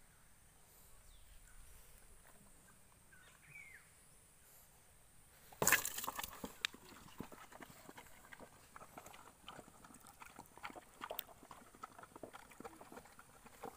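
A pack of dogs and puppies eating together from a bowl: a loud clatter just past halfway, then a busy run of lapping, chewing and muzzles knocking against the bowl.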